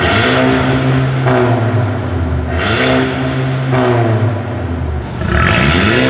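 A 2019 Mercedes-Benz A250's turbocharged 2.0-litre four-cylinder being revved while standing, through an Armytrix decat valvetronic exhaust with its valves open. The revs fall away at the start, then come two more quick blips, the second near the end, each rising in pitch and dropping back toward idle.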